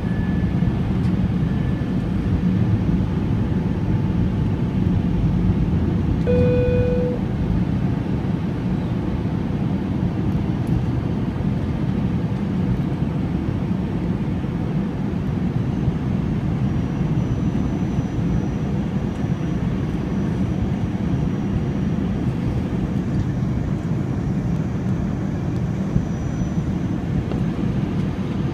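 Airbus A321 cabin noise during descent: a steady low rumble of engines and airflow heard from a seat just behind the wing. A brief tone sounds about six seconds in.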